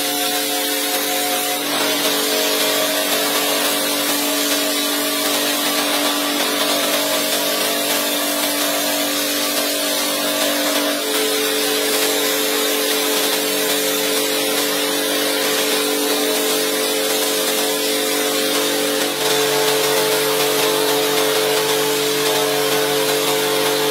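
Pressure washer running and spraying water onto a rug in a steady hiss. Sustained background music chords sit under it, changing a few times.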